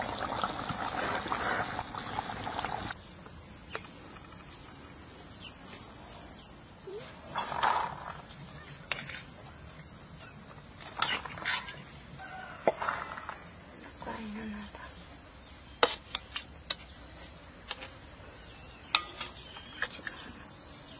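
Crickets chirring steadily in a continuous high-pitched drone that comes in about three seconds in, after a short rough, noisy patch. Over it come scattered sharp clinks and taps of a steel ladle against pots and bowls while rice and curry are dished out.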